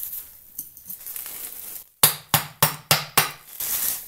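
A removed car fuel filter being knocked to shake loose dirt inside it: five sharp knocks in quick succession, about three a second, starting about halfway in, the first the loudest.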